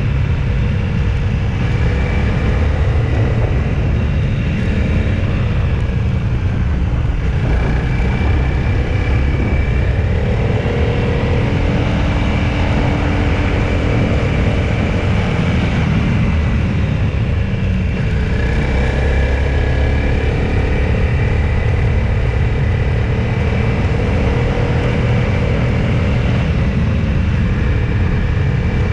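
Motor vehicle driving along a road: a steady low engine and road rumble, with engine tones that rise and fall slightly now and then.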